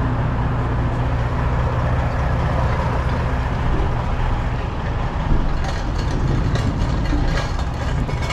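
Semi-truck diesel engine idling steadily with a low drone, with a series of light clicks and knocks in the second half.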